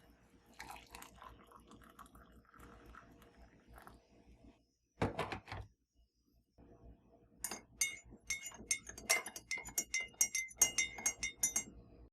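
Kitchen handling sounds: light rustling and a dull knock, then a rapid, irregular run of sharp clinks of hard kitchenware with a ringing tone, lasting about four seconds, near the end.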